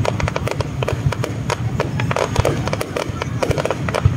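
Aerial fireworks bursting overhead: a dense, continuous crackle of rapid pops, over steady low background noise.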